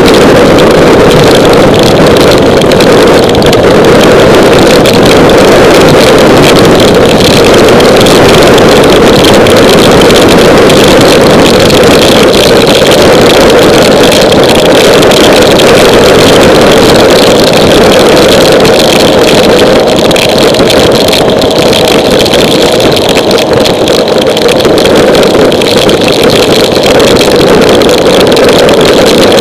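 Honda ST1100 V4 motorcycle riding through heavy rain: a loud, steady rush of wind, rain and engine drone on the bike-mounted camera's microphone.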